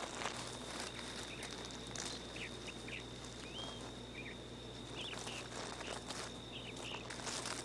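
Quiet outdoor ambience: scattered short bird chirps, mostly in the middle stretch, over a thin steady high whine, with a few soft rustles on gravel.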